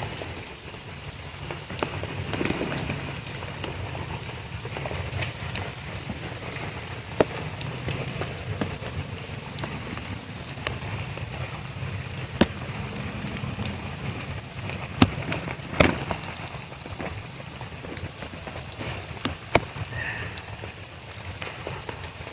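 Steady rain falling, with scattered sharp clicks and taps through it and a brief louder hiss twice near the start.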